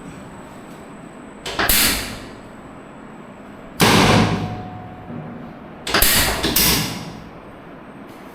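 Three heavy thuds about two seconds apart, each dying away over half a second: chiropractic pelvis-adjustment thrusts, the patient's body hitting the treatment table.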